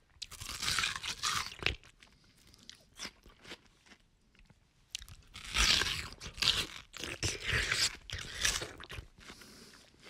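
A person biting into and chewing juicy watermelon, with wet crunching. One burst comes in the first two seconds, and a longer stretch of crunchy chewing runs from about five seconds in until near the end.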